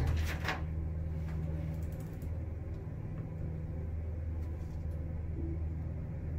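Toshiba traction elevator car (15-person, 1000 kg) travelling downward, heard from inside the cab: a steady low hum and rumble, with a short hiss fading out in the first half-second.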